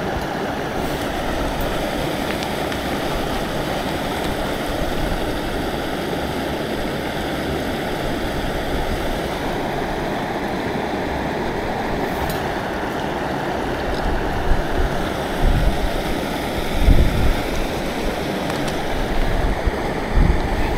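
Steady rush of flowing stream water. In the last few seconds wind buffets the microphone with low thumps.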